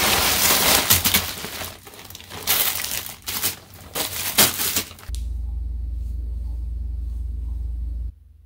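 Plastic mailer bag and plastic wrapping crinkling and rustling loudly in irregular bursts as the package is cut open and handled. After about five seconds this gives way to a steady low hum, which cuts off near the end.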